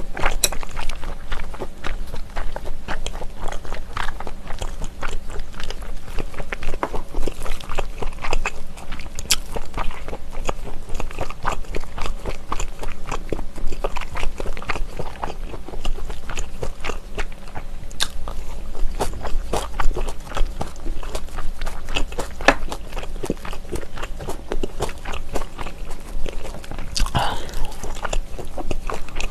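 Close-miked chewing of a mouthful of smoked pork belly: a steady, irregular run of small wet clicks and crunches.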